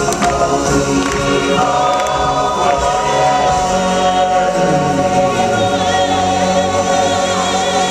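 Choir singing with musical accompaniment in a live stage show, settling into long held notes from about two seconds in.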